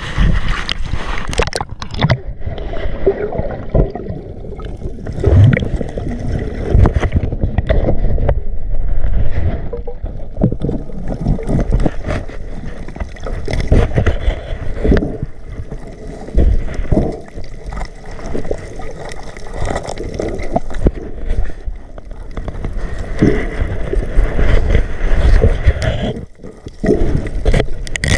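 Water gurgling and sloshing close to the microphone, with irregular low thumps and surges.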